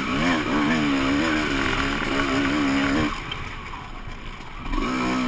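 Honda CR250R two-stroke single-cylinder motocross engine heard from the rider's helmet camera, its pitch rising and falling with the throttle, then dropping off and going quieter a little after three seconds in before picking up to a steady note near the end. Wind rushes over the microphone throughout.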